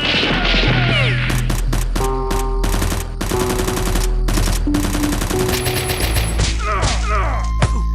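Several bursts of rapid automatic gunfire over background music.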